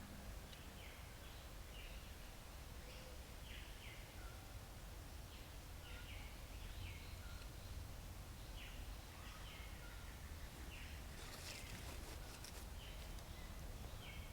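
Birds chirping in short, repeated calls over a steady low outdoor rumble, with a brief rustle about eleven seconds in.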